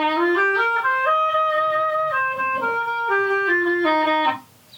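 Clarinet playing a short melody of held notes that steps up and then back down, stopping sharply about four seconds in.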